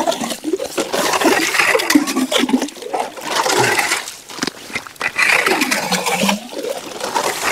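Slush and water sloshing and gurgling as a scoop clears ice chips and slush out of a freshly drilled ice-fishing hole, with short knocks among it.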